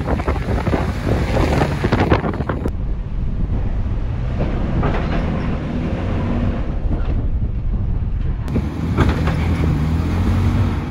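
Second-generation Toyota Tacoma's engine revving in surges as it climbs a steep sandstone ledge, struggling for traction, with heavy wind buffeting the microphone.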